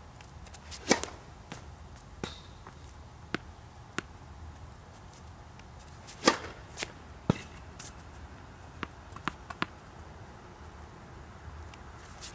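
Tennis ball struck by a racket on the serve: a sharp pop about a second in and another, the loudest, about six seconds in. Fainter knocks and ticks follow each hit.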